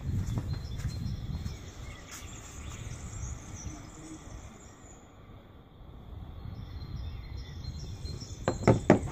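Handling rumble and rustle around a metal slingshot, with a few sharp clicks close together near the end as the slingshot is picked up off the tiled floor.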